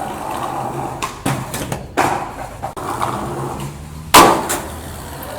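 Skateboard wheels rolling on pavement, a steady rumble broken by sharp clacks of the board: one a little over a second in, one about two seconds in, and the loudest about four seconds in.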